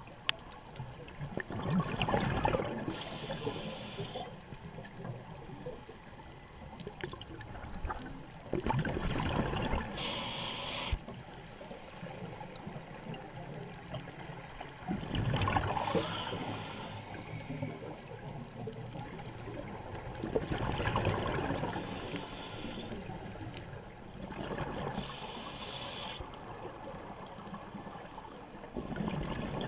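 Scuba diver breathing through a regulator underwater: a loud burst of exhaled bubbles about every six to seven seconds, each followed by a short hiss of inhaled air.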